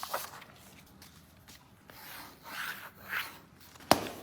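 Sheets of paper rubbing and sliding on a wooden desk as exam forms are gathered up, with a single sharp knock near the end.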